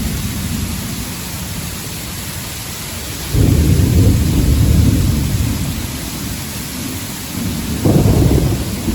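Heavy thunderstorm rain pouring steadily, with two loud low rumbles, a long one starting about three seconds in and a shorter one near the end.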